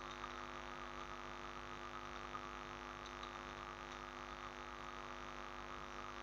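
Steady low electrical mains hum from the recording setup, with a few faint clicks.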